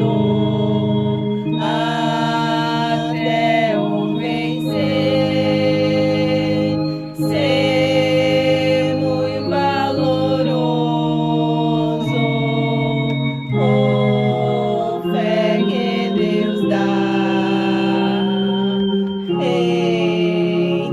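Organ playing a slow hymn in sustained chords, the harmony changing every second or two.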